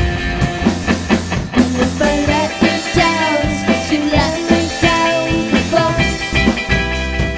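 A live band playing a rock song, with a steady drum beat under sustained melody lines.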